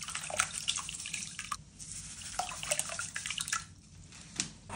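Powdered washing soda (sodium carbonate) poured from a cup into a drum of water, with irregular small splashes and drips as it lands and sinks.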